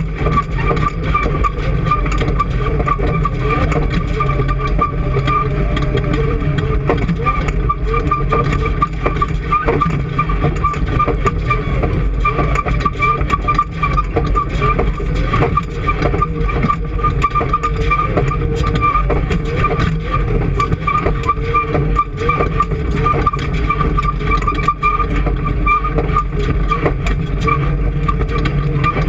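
An engine running steadily at constant speed, with a low rumble and a steady whine above it.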